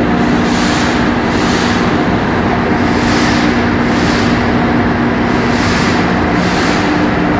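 Cargo pump room machinery of a tanker ship running: a loud, steady drone with a constant low hum and a hiss on top that swells and fades irregularly.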